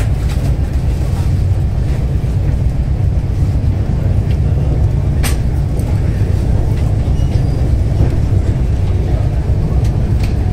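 Steady low rumble of a moving Indian Railways Vistadome train heard from inside the coach: the wheels running on the rails. A single sharp click comes about halfway through.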